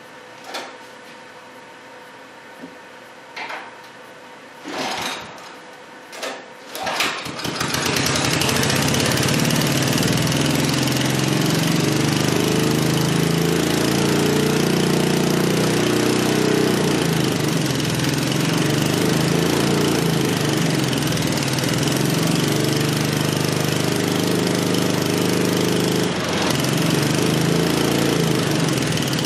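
Small Honda engine running on wood gas from a gasifier: several short cranking attempts, then it catches about seven seconds in and runs steadily and loudly, driving an alternator.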